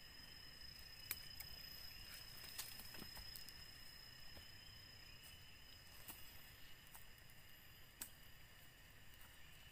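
Faint steady insect drone in a high, thin tone, with scattered crackles of footsteps on dry bamboo leaves and twigs.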